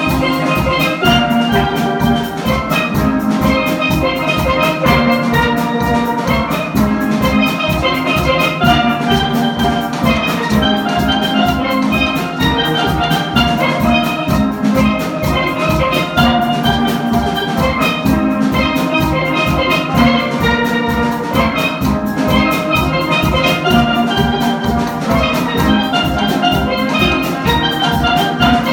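Steel band playing: many steelpans striking fast melodic runs and chords over drums keeping a steady beat.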